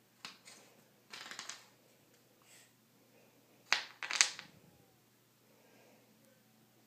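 A die clattering in a wooden shut-the-box game tray as a cat paws at it: a few light clicks, a short rattle about a second in, then the loudest sharp clacks and a rattle about four seconds in.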